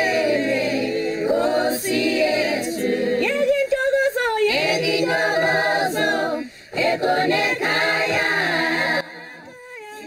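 Choir singing in the soundtrack music. The singing dips briefly past the middle and stops about nine seconds in.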